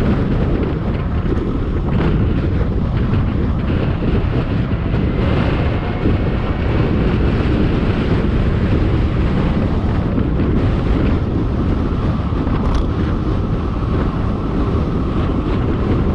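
Loud, steady wind buffeting the microphone of a camera worn by a rider moving at speed.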